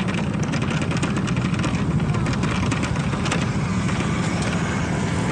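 Motorcycle being ridden at a steady pace: a constant engine hum under steady wind and road noise.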